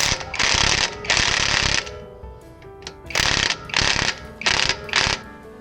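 Ratchet wrench being worked back and forth, six runs of fast ratchet clicking: two longer ones, a pause, then four shorter ones.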